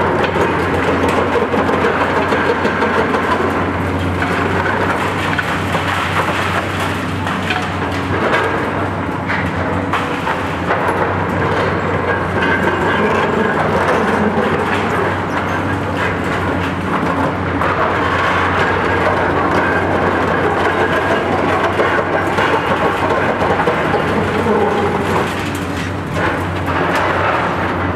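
Diesel engines of two Cat high-reach demolition excavators, a 385C UHD and a Demlone 70, running steadily under load, with continuous crunching, crackling and scraping of concrete and steel as their long-reach demolition tools work the building's roof structure.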